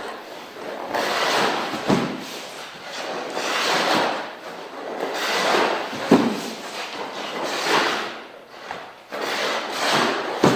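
Hockey goalie skate blades carving and scraping across the ice in repeated swells as the goalies push, cut and pivot. A few sharp thuds come from leg pads dropping onto the ice in the butterfly: about two seconds in, about six seconds in, and at the end.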